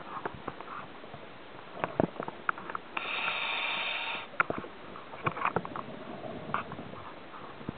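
Underwater recording of scuba diving: scattered clicks and knocks, with a rush of breath through a diver's scuba regulator about three seconds in that lasts just over a second.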